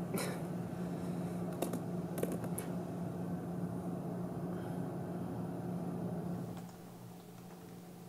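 Quiet room tone with a steady low electrical hum and a few faint clicks or taps in the first few seconds; the ambience drops quieter about two thirds of the way through.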